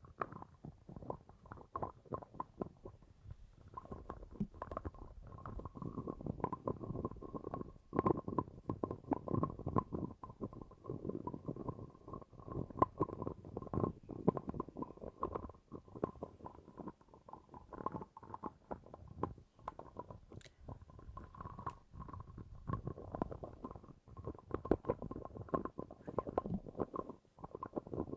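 Continuous low, irregular gurgling and rumbling, like a stomach churning, with a faint steady tone running underneath.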